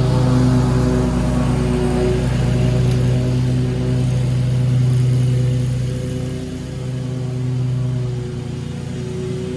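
Engine of a Scag Tiger Cat II zero-turn mower running steadily at cutting speed, a constant drone that eases a little in the second half as the mower moves off.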